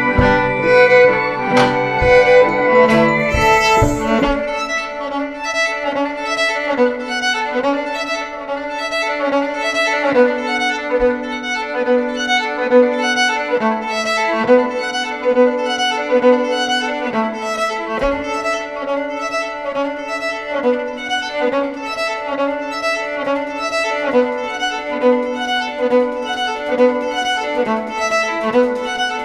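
Instrumental music on violin and drums: a short figure of violin notes repeats at an even pulse, with drum strokes under it. Lower notes drop out about four seconds in.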